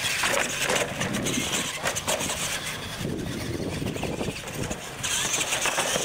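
Radio-controlled monster trucks racing flat out on pavement: electric motors and gearboxes running under full throttle, with knocks and clatter as the trucks hit and land off wooden jump ramps.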